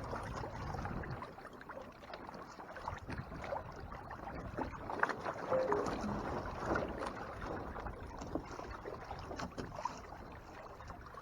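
Water sloshing and splashing against the hull of a Hobie Tandem Island sailing kayak as it rides a swell, with scattered small knocks and ticks.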